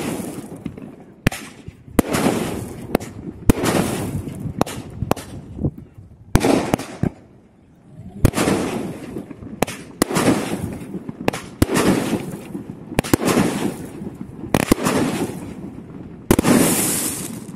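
Great Wall "Night Wish" 16-shot fireworks cake firing in rapid succession: sharp shots, mostly a second or less apart. Each is followed by about a second of fizzing crackle as the shell bursts into sparks, with one last loud burst near the end.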